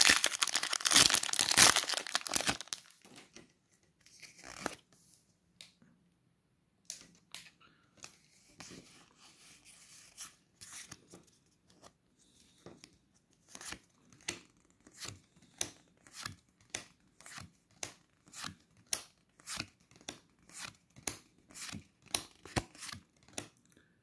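A foil Pokémon booster pack wrapper being torn open and crinkled for the first couple of seconds. Then the trading cards are flicked and slid through one by one, a run of short soft snaps about one a second in the second half.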